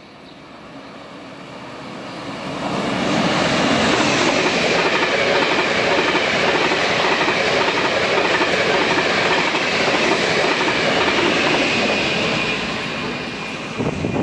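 A Taiwan Railway train passing close at high speed: the rush of wheels on rails swells over the first few seconds, holds loud and steady with a thin high whine above it, and eases off near the end.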